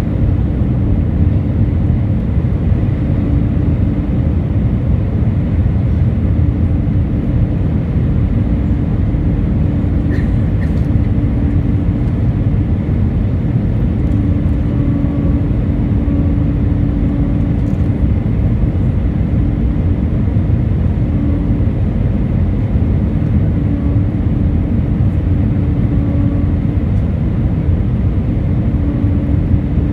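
Cabin noise inside an Airbus A319 on final approach: a steady rumble of engines and airflow, with a low hum that drops out and comes back several times.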